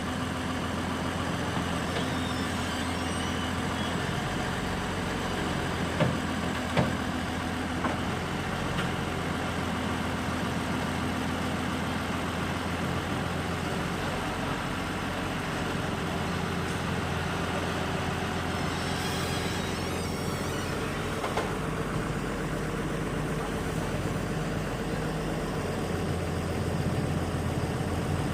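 Heavy diesel engine running steadily at a low, even pitch, with two sharp knocks about six and seven seconds in.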